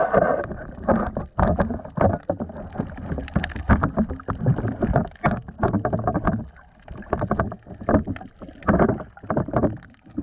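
Irregular splashing and knocking of water, a dense uneven run of short hits with no steady tone.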